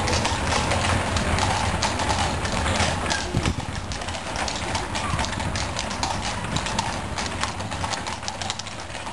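Shod hooves of a four-horse coach team clip-clopping on cobblestones at a walk, many irregular strikes overlapping.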